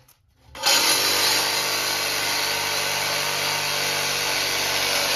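Handheld reciprocating saw cutting through a car's exhaust pipe. It starts about half a second in and then runs steadily under load.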